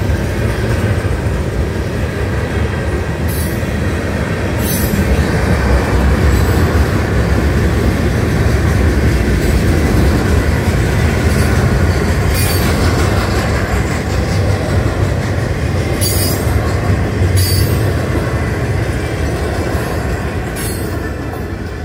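Florida East Coast Railway freight train of intermodal container cars rolling past at speed through a grade crossing: a steady heavy rumble of wheels on rail, with a few short, sharp high-pitched wheel squeals every few seconds. The rumble eases off near the end as the last cars go by.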